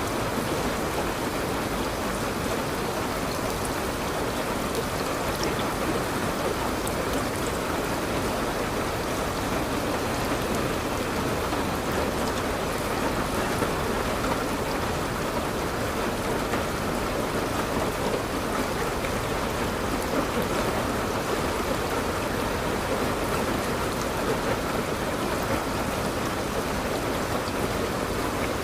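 Steady rain falling, a constant even hiss with scattered faint drop ticks.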